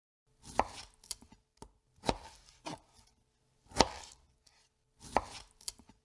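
Food being chopped with a knife: about eight sharp chops at uneven spacing, some in quick pairs half a second apart, with short pauses between groups.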